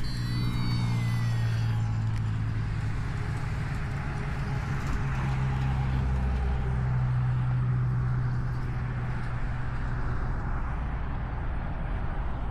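A motor running steadily: a low, even hum with a hiss of noise over it, unchanged throughout.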